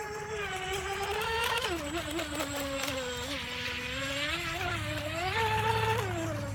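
Atomik Barbwire RC racing boat's brushless electric motor whining as the boat runs across the water. The pitch rises and falls several times and the sound grows louder toward the end as the boat passes close by.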